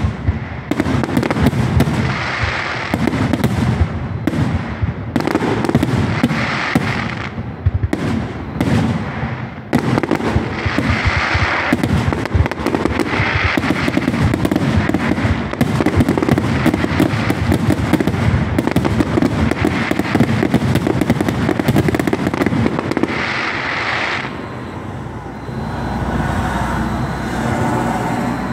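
Aerial fireworks shells bursting in rapid, dense succession, with repeated bouts of crackling. The bangs stop about four-fifths of the way through, leaving a low steady rumble.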